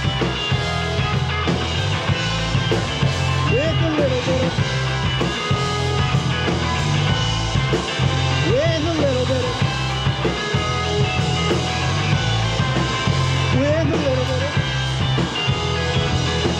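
Indie rock band playing live with two electric guitars, electric bass and a drum kit, an instrumental passage with no singing. A high sliding figure comes back about every five seconds over the steady, loud band sound.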